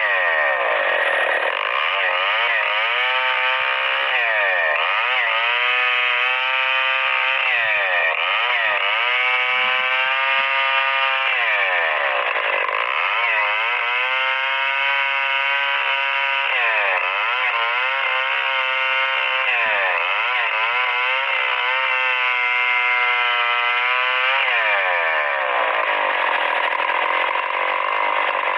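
STIHL 070 two-stroke chainsaw rip-cutting a Merbau log along the grain, its engine speed sagging under load and picking back up again and again as the bar is worked forward and back through the cut. Near the end the revs fall away to a lower, steady running.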